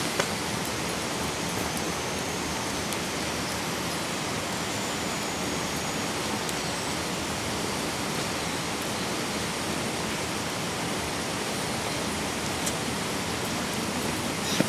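Steady rushing of a mountain stream flowing through a gorge.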